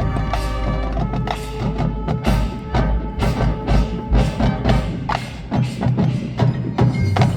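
Marching band playing its competition show: a busy percussion passage of quick, sharp strikes over held notes, ending on a strong hit.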